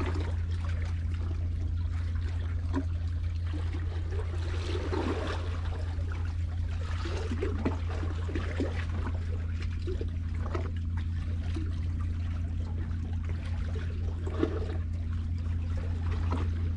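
Seawater lapping and trickling among concrete tetrapods at the waterline, in small irregular splashes, over a steady low hum.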